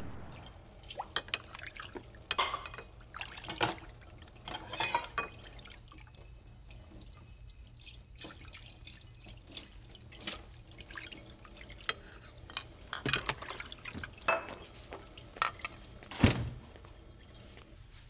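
Water from a kitchen tap dripping and splashing in a sink, broken by scattered short, sharp knocks. The loudest knock comes about two seconds before the end.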